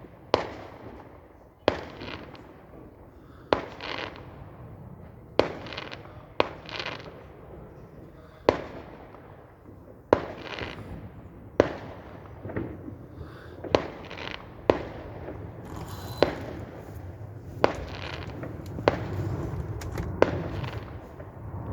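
Fireworks going off: a string of sharp bangs, roughly one every one to two seconds, each with a short fading tail.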